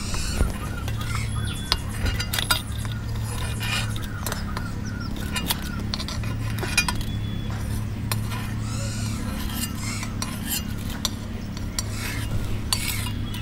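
Metal utensils clinking and scraping against a cooking pot in irregular knocks, as boiled tomatoes and green chillies are lifted out, over a steady low hum.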